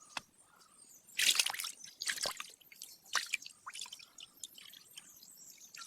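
A hand splashing and sloshing in shallow pond water while groping for a fish: a run of short, irregular splashes with drips, the loudest a little over a second in and again about two seconds in.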